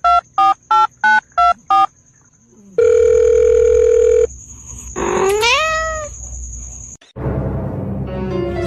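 Phone keypad beeps, about three a second, then one steady electronic beep lasting about a second and a half. After that comes a single rising call about a second long, like a meow, and a noisy stretch of mixed sound near the end.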